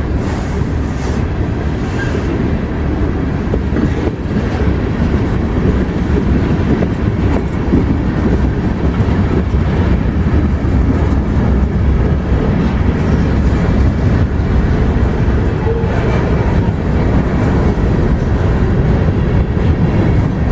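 Ferromex freight train rolling by with a steady low rumble. No horn is sounding.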